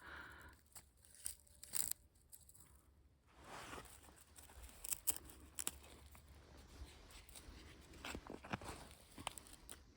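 Faint rustling and scraping of digging in garden soil and dry plant debris, with scattered small crunches and clicks.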